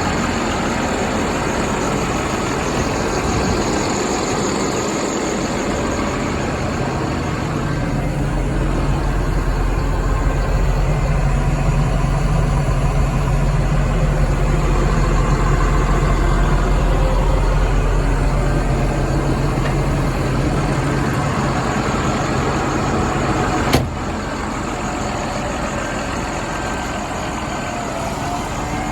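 Gradall XL4100 wheel excavator's Mercedes-Benz diesel engine running just after starting. It works harder with a deeper hum for a long stretch in the middle, then drops back after a sharp click.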